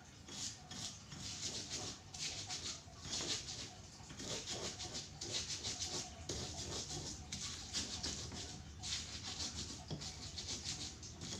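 Chicken crackling and sizzling in a pan of hot oil, the crackle surging and fading in uneven waves.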